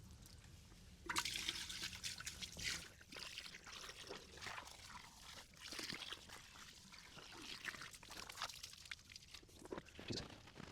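Water being poured out of a bucket into a drain, splashing and trickling; it starts about a second in and goes on unevenly.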